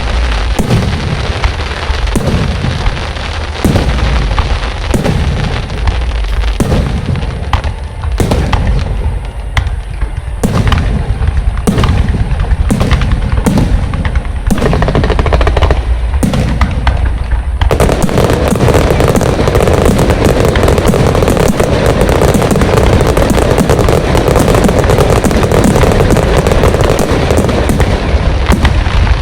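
Fireworks going off loudly: a steady run of sharp booms, a bit more than one a second, then, a little over halfway through, the firing turns into a dense, continuous crackling barrage.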